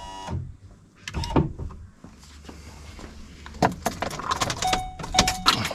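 Power window motor, plugged in and hanging loose off its regulator in the driver's door, whirring and stopping a moment into the sound; the motor runs fine, pointing to a bind in the regulator instead. Then metallic clinks and rattles of parts and tools being handled.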